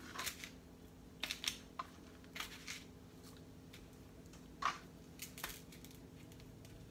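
Raw beef cubes being picked up and set down onto a paper plate by hand: a few scattered soft taps and rustles, the sharpest about four and a half seconds in.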